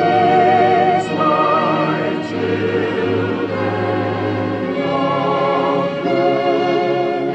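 Orchestral music with operatic singing: a voice holds long notes with wide vibrato over a sustained choir and strings.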